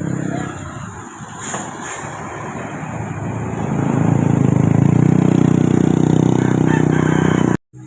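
A bus passing close by: road and engine noise at first, then its diesel engine drone swelling loud and steady, cutting off suddenly near the end.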